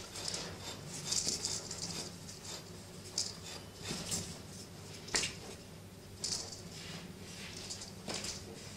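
Scattered rustles and small ticks of cloth hand puppets and a fork being handled, over a steady low hum.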